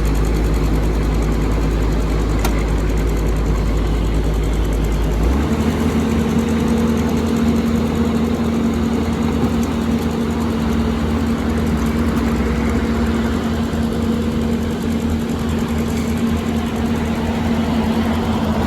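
Diesel engine of a Komatsu PC210 excavator running steadily, its note shifting to a new steady hum about five seconds in.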